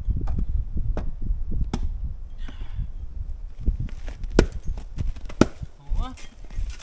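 Axe chopping firewood: a quick, uneven series of sharp strikes into wood, with a short wavering squeak about six seconds in.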